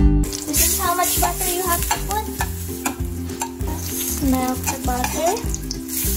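Butter sizzling as it melts in a stainless steel pan, stirred with a metal spoon that clicks and scrapes with short squeaks against the pan.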